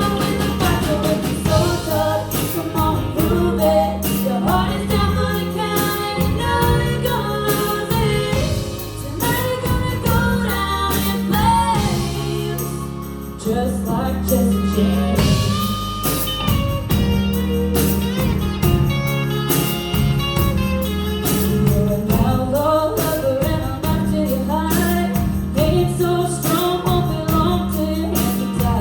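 A woman singing a song with band accompaniment: a sung melody over steady bass notes and a regular beat.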